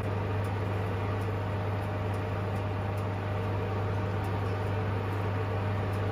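A kitchen appliance fan running with a steady low hum and an airy hiss.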